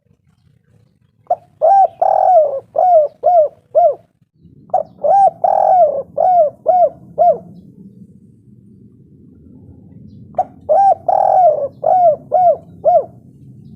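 Spotted dove (tekukur) cooing: three phrases, each a quick first note, a longer drawn coo, then a run of four or five short rounded coos. A low steady hum runs under the calls from about a third of the way in.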